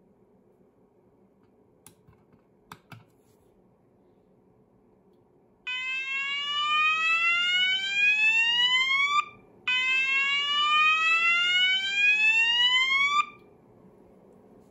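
A few light clicks about two seconds in, then a Roshni LP (ROLP/SV) fire alarm sounder sounding a tone made of two slow rising sweeps. Each sweep climbs for about three and a half seconds and then cuts off.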